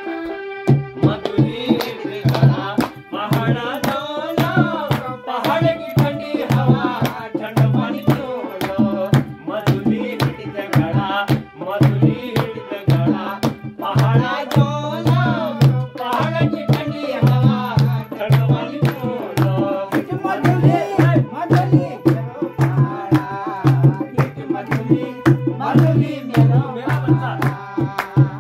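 Pahari folk song played live on a dholak drum with a fast, even beat, an electronic keyboard melody and a voice singing along.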